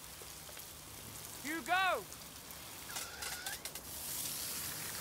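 Garden hose spraying a jet of water, a steady hiss that starts about four seconds in, just after a few sharp clicks. A second or two earlier, a short pitched call that rises and falls is the loudest sound.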